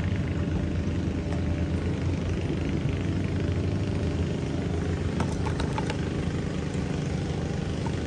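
An engine idling steadily with an even, low hum. A few faint clicks come about five seconds in.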